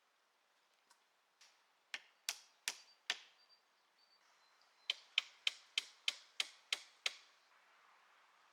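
Repeated sharp knocks in two runs. First come four strikes about 0.4 s apart, then after a short pause eight quicker ones at about three a second.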